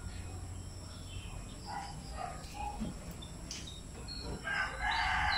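A rooster crowing, starting about four and a half seconds in, with short bird chirps before it.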